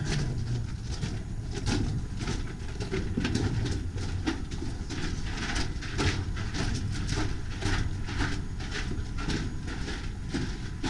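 Footsteps crunching on a loose rocky tunnel floor, about two steps a second and uneven, over a low rumble.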